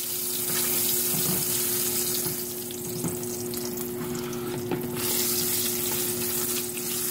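Tomato-paste sauce sizzling in a frying pan on the stove: a steady hiss that eases for a couple of seconds in the middle, over a steady low hum.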